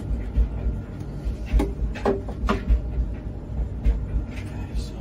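A few sharp plastic clicks and knocks about one and a half to two and a half seconds in, as a plastic component is taken out of a gas combi boiler and handled, over uneven low rumbling from the handheld microphone being moved.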